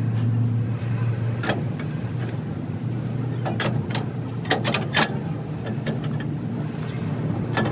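A steady low engine hum runs throughout, with several sharp metallic clinks and knocks from differential parts and tools being handled on a truck's rear axle housing; the loudest clinks come about five seconds in.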